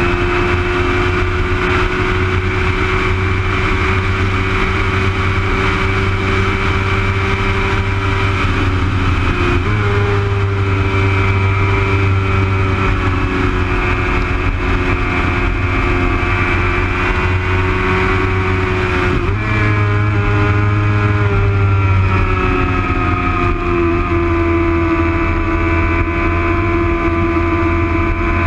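Onboard sound of a track-day motorcycle engine running hard at high revs, with wind and road rush. The engine note steps sharply in pitch twice, about 10 and 19 seconds in, then sags and climbs again near the end as the bike leans through a corner.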